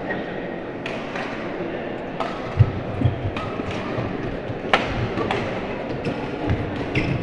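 A badminton doubles rally: sharp racket-on-shuttlecock hits come every second or so, with a few heavy thuds of players' feet on the court, over a steady murmur of voices in the hall.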